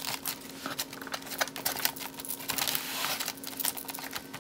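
Hands handling a coil of clear plastic tubing and its packaging: irregular plastic clicks and crinkles, with a longer rustle about two and a half seconds in, over a faint steady hum.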